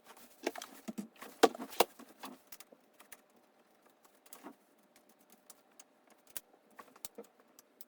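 Small metal clicks and taps from handling bottle-cage bolts and a battery mounting bracket on a bicycle frame. The clicks come thick and fast for the first two or three seconds, then only now and then.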